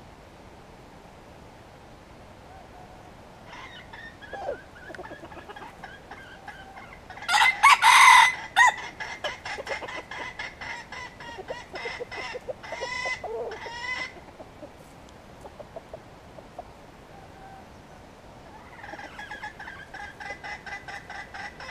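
Wild junglefowl rooster crowing once, loudly, about seven seconds in, with runs of rapid clucking calls around it and again near the end.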